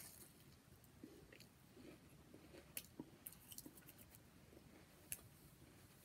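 Faint close chewing of a Japanese edible crystal candy (kohakutou), its crisp sugar shell crunching, with a few sharper crunches about three seconds in and another near the end.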